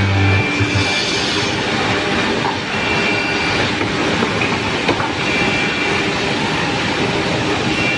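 Automatic cabinet-door hinge boring machine running: steady mechanical noise with a high whine that comes and goes about every two and a half seconds.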